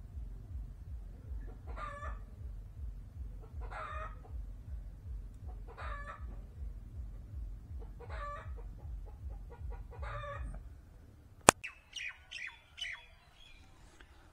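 A chicken calls five times, one short call about every two seconds, over a steady low rhythmic throb. A single sharp click follows about eleven seconds in, then a few faint knocks.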